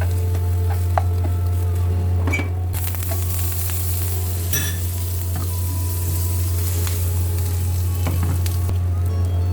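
Egg-dipped bread frying in butter in a pan, sizzling steadily, with a few light clicks of a utensil against the pan. A steady low hum runs underneath.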